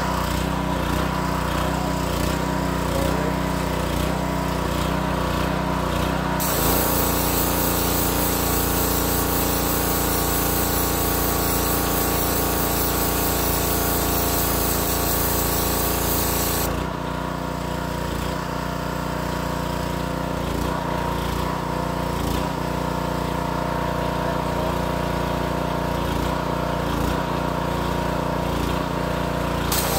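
Wilks USA TX625 pressure washer's 7 hp four-stroke petrol engine running steadily. From about six seconds in, the water jet hisses onto the ground for about ten seconds, then stops while the engine keeps running.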